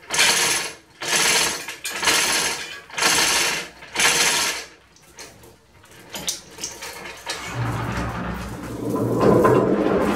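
Hand chain of a small manual chain block being hauled in about five strokes a second apart, the chain rattling through the block with the pawl clicking as the load is lowered. After a short lull, a low steady hum with clatter comes in during the second half.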